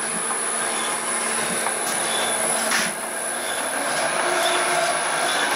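Electric-motor-driven cutter head of a home-built can crusher and copper cutter running in, growing gradually louder as it is brought up to full speed. It is turning with less drag as it beds in.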